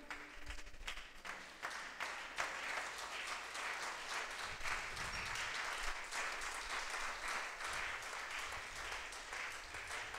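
Congregation applauding: many hands clapping at once in a dense, even clatter.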